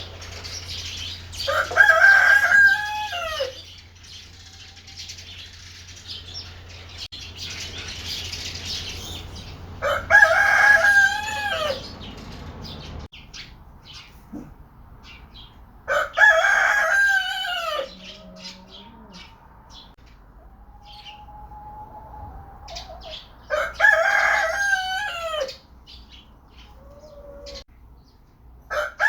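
Rooster crowing four times, about every six to eight seconds; each crow lasts about two seconds and drops in pitch at the end. Short, fainter calls come between the crows, and a steady background hiss and hum stops about halfway through.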